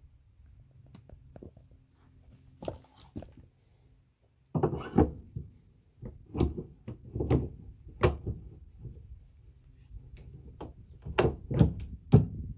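Metal knocks and clicks of a detachable swan-neck tow ball being handled and pushed into its receiver under the car's rear bumper. A few faint clicks come first, then from about halfway a quick run of sharp knocks, the loudest near the end.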